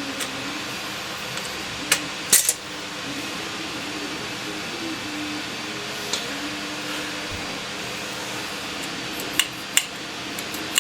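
Sharp metal clicks and clacks from an antique cash register's keys and reset mechanism: a couple of clicks about two seconds in, one around the middle, and a quick run of clicks near the end. A steady hum runs underneath.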